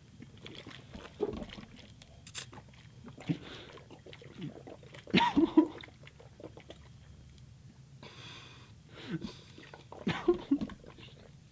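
A man gulping liquid straight from a plastic bottle in irregular swallows, the loudest about five seconds in and again around ten seconds in.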